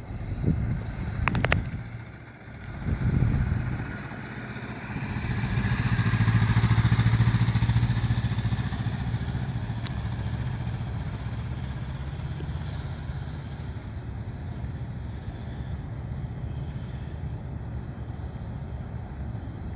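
Honda Rebel 500's parallel-twin engine running as the motorcycle rides by at low speed, growing louder about a quarter of the way in, then slowly fading as it moves away. A few low wind thumps on the microphone in the first seconds.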